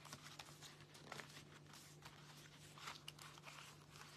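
Faint rustling and scraping of cardstock being handled, with scattered small ticks, as a folded card panel is pressed and pushed to make it close into its slot.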